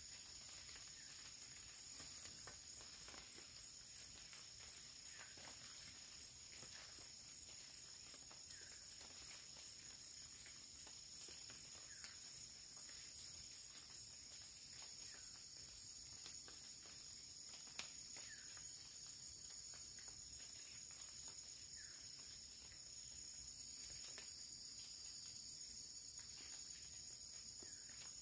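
Steady, high-pitched drone of a rainforest insect chorus, in two close pitches, with faint scattered clicks and small snaps from kindling being worked and catching fire; one sharper click about two-thirds of the way through.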